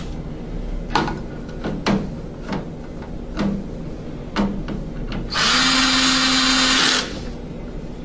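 A few light knocks and clicks, then a cordless drill/driver runs steadily for about a second and a half, driving a screw to fasten the moved junction box into the furnace's sheet-metal cabinet.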